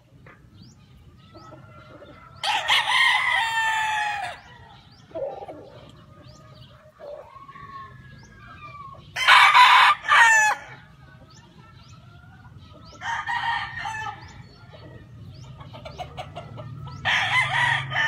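Gamefowl roosters crowing in turn, four crows spread through, the loudest about halfway, with faint chirps between.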